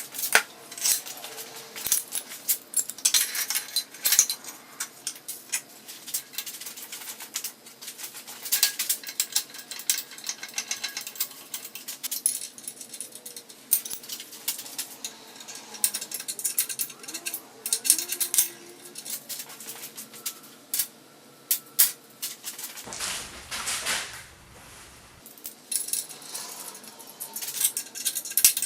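Metal parts and tools clinking and clanking as they are handled and set down, many sharp knocks in quick, irregular succession, with a brief rougher noise a little past two-thirds of the way through.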